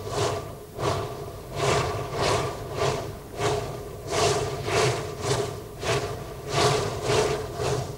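Four-coupled (0-8-0) forest-railway steam locomotive working under steam, its exhaust chuffing from the chimney in slightly uneven beats, about three every two seconds, over a steady undertone.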